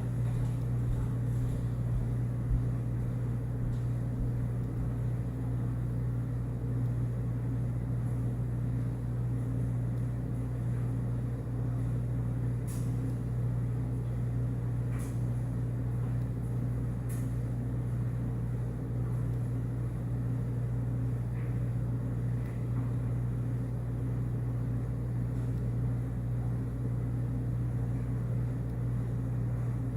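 Steady low mechanical hum that does not change, with a few faint ticks near the middle.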